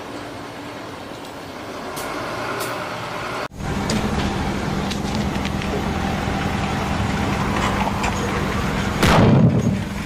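Heavy truck running with a steady low hum, then a short, very loud blast about nine seconds in. A few seconds in, the sound cuts abruptly from quieter outdoor noise to the louder truck noise.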